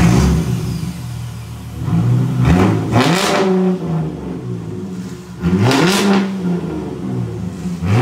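2010 Ford Mustang's 4.0-litre V6 running with its muffler removed, settling from a start-up flare into idle and then revved twice, the pitch rising and falling each time, with a third rev starting near the end.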